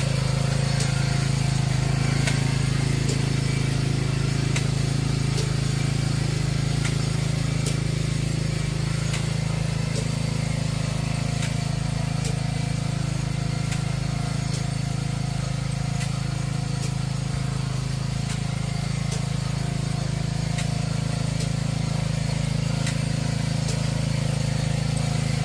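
Engine of a four-row chive transplanter running steadily at constant speed, with faint clicks repeating at an even rhythm.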